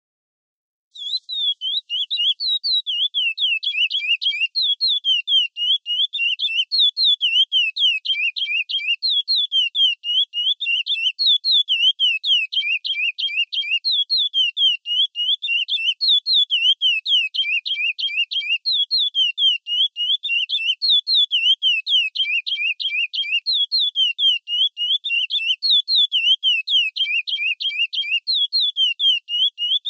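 Curió (chestnut-bellied seed finch) singing the classic praia-style song: a continuous run of quick whistled notes that slide up and down in pitch, starting about a second in.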